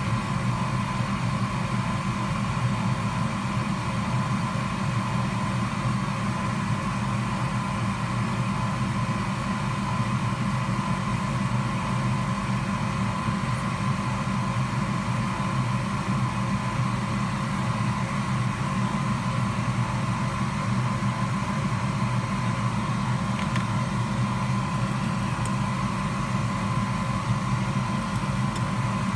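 Steady hum of a small electric fan motor, with a faint high steady whine over it.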